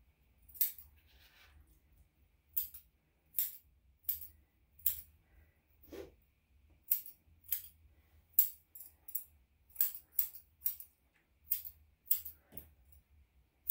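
Grooming scissors snipping a Yorkshire terrier's wet hair around its feet and legs: a string of crisp metal snips at an uneven pace, about one or two a second.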